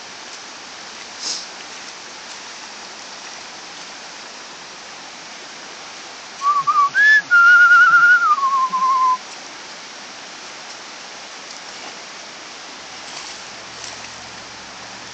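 A person whistling a short run of wavering notes for about three seconds, starting about six seconds in: the pitch jumps up, holds, then steps down at the end. Underneath, the steady rush of creek water.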